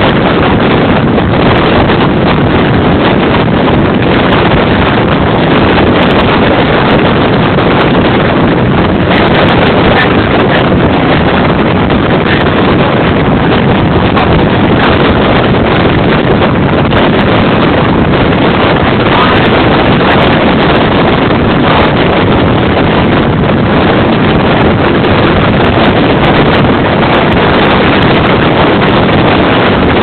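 Strong gale wind buffeting the microphone: a loud, steady rush of wind noise with no let-up.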